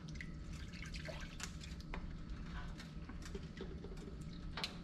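Water being poured from a plastic bottle into a pan of thick gravy while it is stirred, giving scattered wet clicks and drips, with a louder click near the end.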